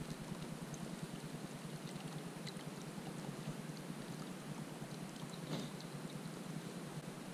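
Small water ripples lapping and trickling against a kayak hull, faint and steady, with a few light ticks.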